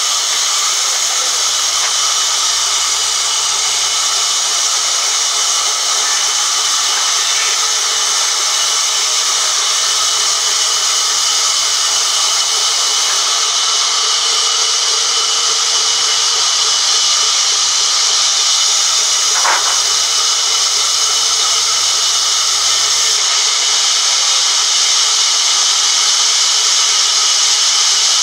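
Large vertical band saw running through a log on a sawmill carriage: a loud, steady, hissing whine at an even level. A brief sharp tick about two-thirds of the way in.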